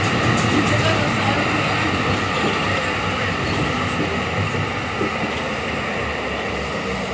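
Tram running along the track, heard from inside the car: a steady rumble and wheel-on-rail noise with a faint steady whine, growing gradually quieter.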